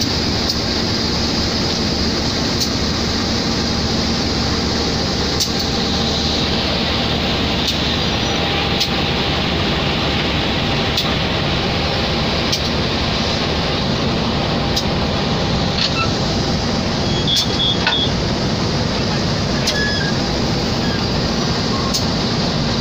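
Diesel-electric locomotive standing at idle close by, its engine giving a steady, unchanging hum and rush throughout.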